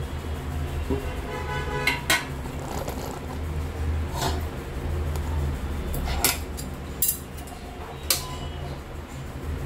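Stainless steel cookware clinking and knocking as a steel lid and a steel mixing bowl are handled and set down on a gas stovetop: about six sharp metallic knocks, one ringing briefly, over a steady low hum.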